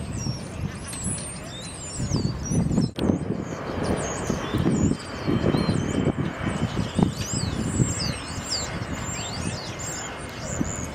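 Outdoor ambience: an uneven low rumble with many small birds chirping over it, the chirps busiest in the second half.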